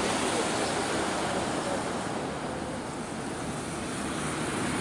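Steady rushing roar of floodwater pouring over a dam.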